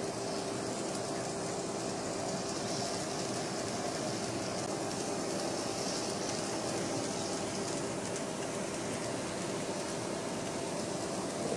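Fleischmann N-scale BR 86 model steam locomotive running along the track with its freight wagons: a steady small-motor whir with a constant hum and an even hiss of wheels rolling on the rails.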